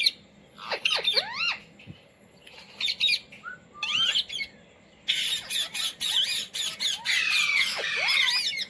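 Indian ringneck parakeet squawking: a few short calls with quick up-and-down pitch sweeps in the first four seconds, then a dense, continuous run of shrill calls from about five seconds in.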